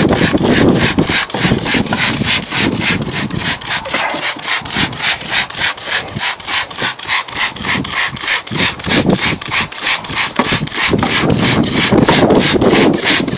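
Hand trigger spray bottle of engine degreaser being squeezed over and over, each pull giving a short hiss of spray, about three to four a second in a steady rhythm.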